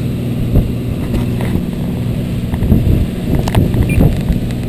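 A motorboat's engine running with a steady low hum, with irregular thumps and knocks over it.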